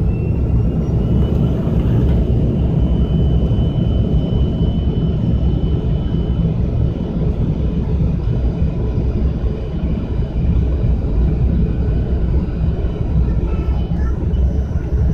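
Airliner's jet engines at takeoff thrust, heard from inside the cabin during the takeoff run: a loud, steady rumble with a thin high whine that rises in pitch in the first second and then holds.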